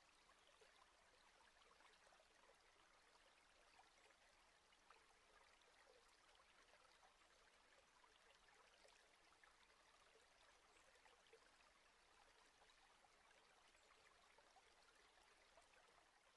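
Near silence: a faint, even hiss with light crackling.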